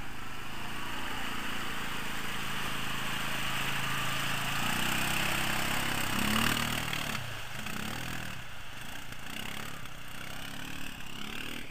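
Quad bike engine driving through a deep water-filled mud rut, with water and mud splashing. The revs climb to a peak about six seconds in, then drop back and rise and fall as the quad pulls on through the water.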